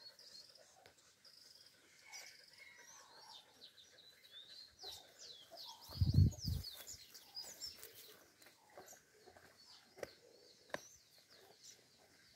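Small birds chirping in quick, high, repeated calls, with a brief low thump about six seconds in and a few light clicks near the end.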